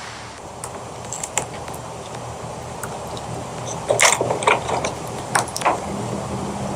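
Kitchen clatter: scattered sharp clicks and knocks of utensils being handled, bunching together about four to six seconds in, over a steady low hum.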